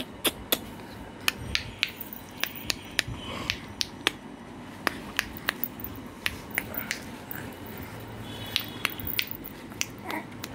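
A series of irregular sharp clicks, roughly two a second.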